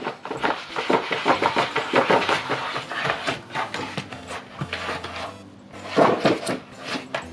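Paper booklet rustling and scraping as a cat burrows its head under it and paws at the pages: quick, busy rushes of rustling, easing off past the middle, then a louder flurry about six seconds in.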